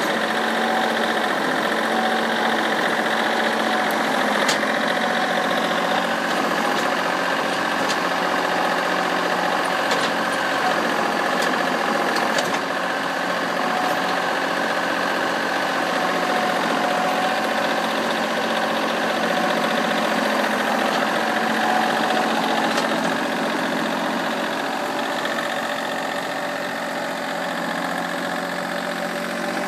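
Engine of a small Honda tractor running steadily while working its backhoe in hard-packed clay, with a few sharp clicks now and then.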